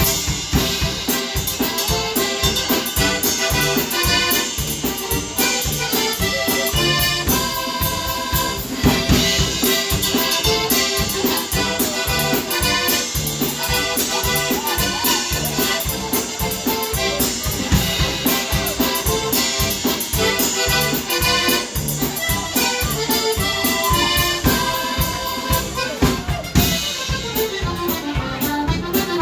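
Live band music: two button accordions playing the tune over a tuba and a drum kit keeping a steady beat.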